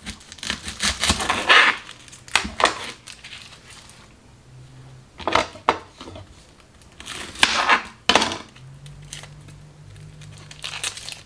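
Dry, papery yellow onion skin crackling and tearing as it is peeled off by hand and with a knife, in irregular bursts of crinkling with short pauses between.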